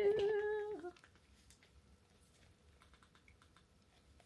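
A woman's voice holds one drawn-out word for about a second. Then come faint, light ticks and rustles as a flaky roti flatbread is pulled and torn apart by hand.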